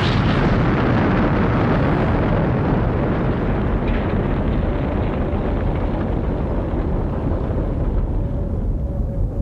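Animation sound effect of a large explosion: a long, continuous rumble whose upper hiss slowly fades away, with a faint steady tone coming in near the end.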